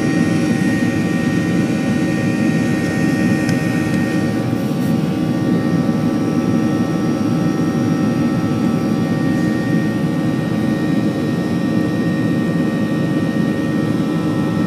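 Cabin noise of a Boeing 737-900ER climbing after take-off, heard from a window seat: the steady drone of its CFM56-7B jet engines and rushing air, with a steady high whine from the engine fans.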